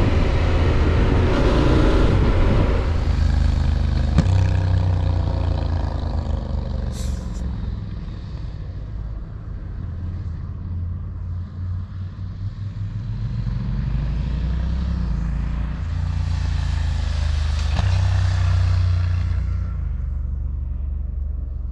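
Yamaha Ténéré 700's parallel-twin engine, fitted with an Akrapovic exhaust, running under way. Its note rises and falls with throttle and gear changes, climbing steadily a little past the middle, and wind noise swells near the end.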